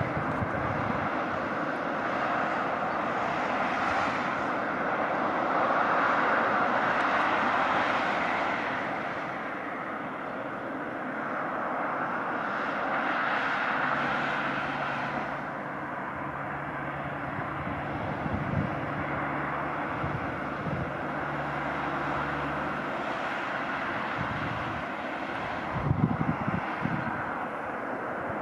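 Road traffic: a continuous rush of tyres and engines from passing cars and trucks, swelling as each vehicle goes by and fading between them, with a steady low engine hum in the middle stretch and a few low thumps near the end.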